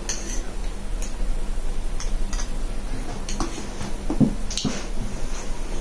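Scattered light clicks and taps of forks against plates, with soft eating sounds, as noodles are twirled and eaten; a steady low hum runs underneath.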